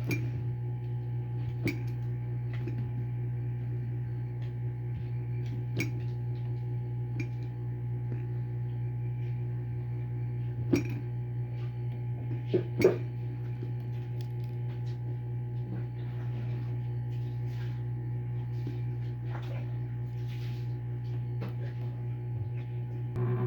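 Scattered light clicks and taps of small hand tools on a phone's plastic and metal parts during battery removal, over a steady low hum. Two sharper taps come close together a little past the middle.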